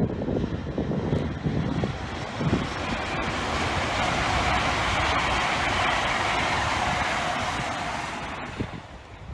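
LNER Azuma high-speed train passing at speed: a rushing roar of wheels on rail that swells, holds for a few seconds and fades away, with wind buffeting the microphone before it arrives.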